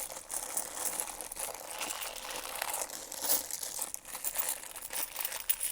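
Plastic bank bag of coins being opened and handled, crinkling and crackling continuously with small clicks.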